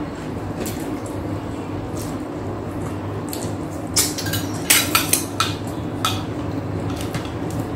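Eating sounds at a table: scattered sharp clicks and clinks of cutlery against plates, with a quick cluster of them about four to five seconds in, over a steady low hum.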